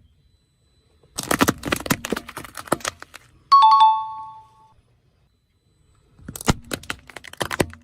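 Two bursts of dense cracking and crunching, each lasting about two seconds, as brittle objects are crushed under a car's tyre. Between the two bursts a two-note falling chime rings once and fades.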